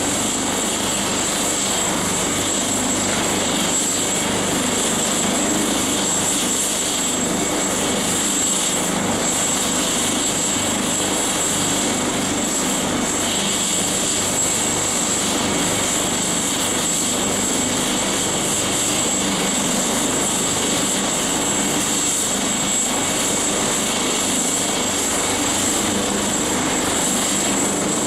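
AgustaWestland AW139 helicopter running on the ground with its main rotor turning, its twin turboshaft engines giving a steady high whine over the rotor noise.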